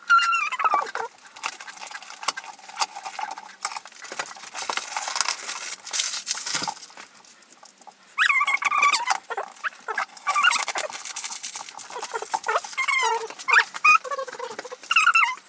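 Protective plastic film being peeled off a red plexiglass cube, crinkling and rustling, with short high squeaks now and then.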